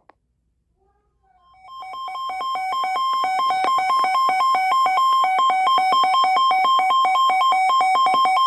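Weather radio receiver sounding its electronic alert alarm for a tornado warning: two pitches alternating rapidly, swelling in from about a second in, then holding steady and loud before cutting off abruptly.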